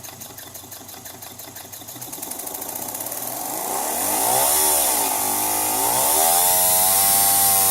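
Volkswagen Golf Mk4 fuel pump's electric motor running on a bench power supply. It speeds up from a quiet, low run into a louder, higher whine that rises and wavers before settling steady as the voltage is turned up. The owner takes its noise for a bad bearing.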